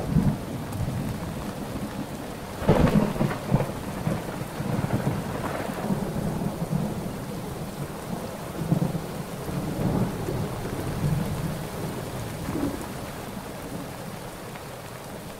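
Thunder rolling over steady monsoon rain. The loudest peal comes about three seconds in, with further rumbles through the middle, and they die away toward the end while the rain goes on.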